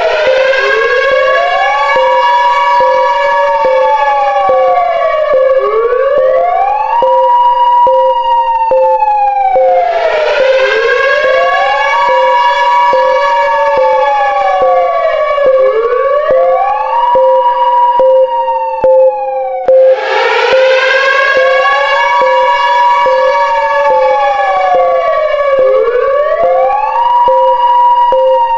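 Loud wailing attack-warning siren: its pitch rises, holds and falls about every five seconds over a steady pulsing lower tone. In this mock emergency broadcast it warns of an imminent nuclear strike.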